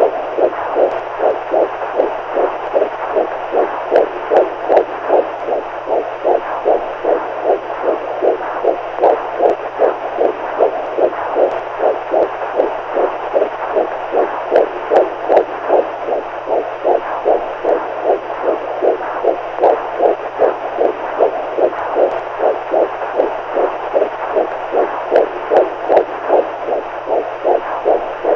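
Heartbeat sound: soft, even thumps repeating at a steady, quick rhythm with no break, over a faint steady low hum.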